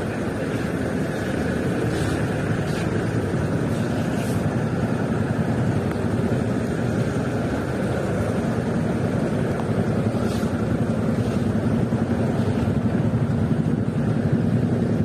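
Steady rumble of traffic heard from a slowly moving motor scooter: the scooter's own engine and road noise, mixed with trucks running close alongside in dense traffic.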